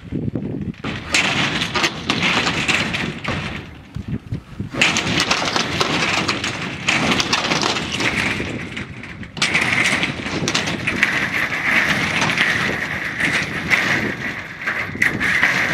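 Galvanized corrugated tin sheet being pried up with a demo fork, rattling, scraping and banging as its ring shank nails pull loose. The sound turns harsher and brighter about nine seconds in.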